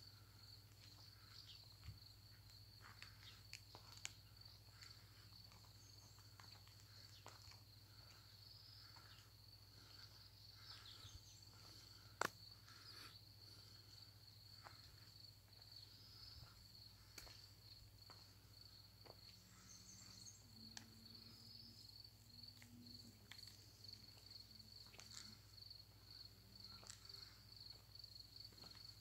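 Faint, steady high-pitched chirring of crickets in the evening grass, with a few scattered faint clicks and one sharper tick about twelve seconds in.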